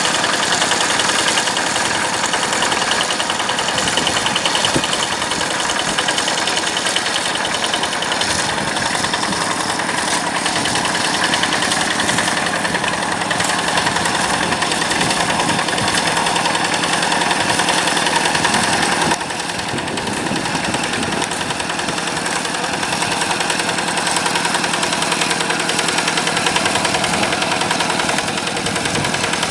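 Yanmar diesel engine of a rice-field tractor running steadily with a rapid knocking beat; it gets a little quieter about two-thirds of the way through.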